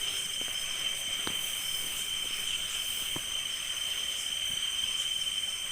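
Crickets and other night insects trilling steadily in a shrill, unbroken chorus, with a couple of faint clicks about one and three seconds in.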